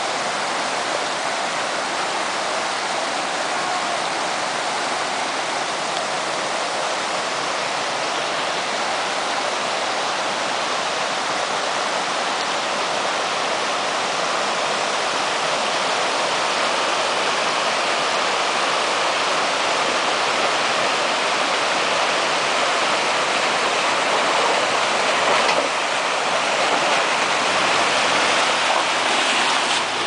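Rushing mountain creek water tumbling over rocks: a steady, dense roar that grows slightly louder in the second half. Near the end, the faint low sound of an SUV's engine joins in as it comes close.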